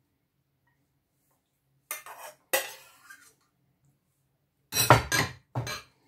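Metal spoon clinking and scraping on a ceramic plate as sauerkraut is spread across it: two short knocks about two seconds in, then a quick run of three louder ones near the end.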